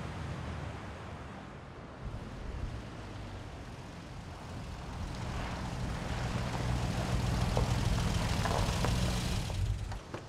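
Surf washing over rocks, then a Hummer H1 4x4's engine running as it drives up, growing louder with a rising hiss of tyres on gravel, and stopping suddenly near the end.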